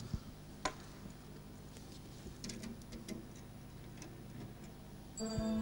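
Scattered light clicks and knocks of equipment being handled at a lectern and computer desk. Near the end a steady pitched tone with overtones starts.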